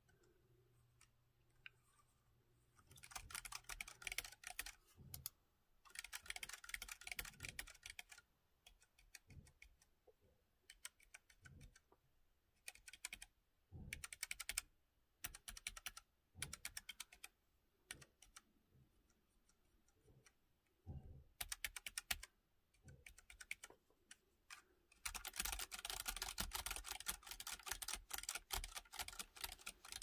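Keychron K3 low-profile mechanical keyboard with optical red linear switches being typed on, in bursts of rapid key clacks with short quiet pauses between. The longest, densest run comes in the last five seconds.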